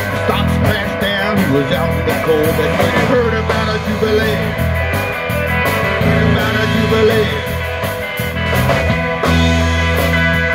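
Live rock band playing an instrumental stretch: electric guitar and bass guitar through amplifiers.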